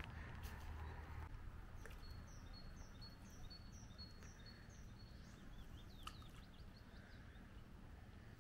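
Faint songbird singing a row of about seven short, evenly repeated high notes, then a quick burst of chirps, over a low outdoor rumble.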